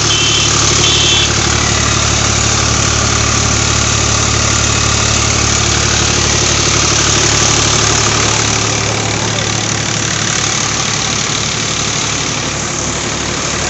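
Swaraj 735 FE tractor's three-cylinder diesel engine running steadily under load while it drives a rice huller, with the huller's dense machine noise mixed in.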